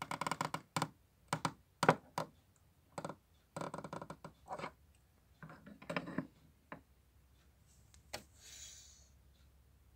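Hard plastic clicks and clacks as Playmobil figures are handled, tapped along the table and set down on a plastic toy sofa, with a short rustle near the end.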